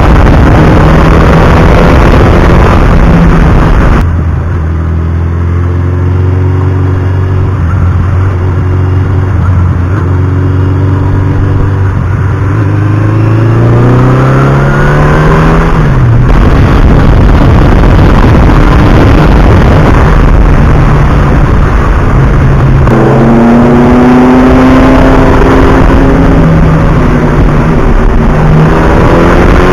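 Suzuki GS1100E's air-cooled inline-four engine pulling under way: it holds a steady pitch for several seconds, revs up, and drops sharply on a gear change about sixteen seconds in, then climbs again. A constant rush of noise runs beneath it.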